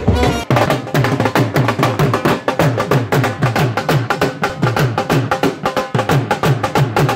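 Dhol played fast with sticks: sharp cracks on the treble head over repeated deep booms on the bass head that slide down in pitch, in a steady, driving rhythm. It starts about half a second in, cutting in over a brief snatch of bass-heavy music.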